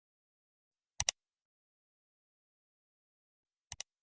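Two sharp double clicks over dead silence, one about a second in and a softer one near the end.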